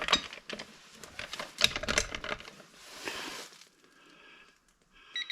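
Irregular metallic clicks and knocks from a wrench and socket being worked on a car's lug nut, then short electronic beeps from a digital torque adapter near the end.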